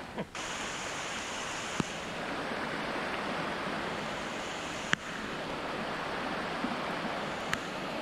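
Steady rushing hiss of heavy rain falling through wet forest, with three faint sharp ticks spread across it.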